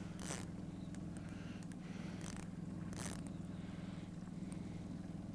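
Boat's outboard motor idling with a steady low hum, with three short raspy zips on top, about a third of a second, two and a quarter, and three seconds in.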